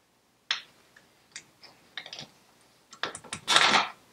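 Metal hand tools clicking and knocking against a BSA Bantam engine's mounting points and frame as an engine mounting bolt is worked into place: scattered sharp clicks, then a louder, longer metallic scrape and clatter near the end.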